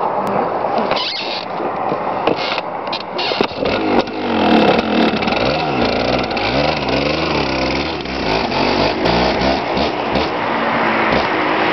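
1992 Yamaha WR200R two-stroke dirt bike coming closer under acceleration. About four seconds in, the engine note grows louder and its pitch climbs and drops again and again as it revs up through the gears.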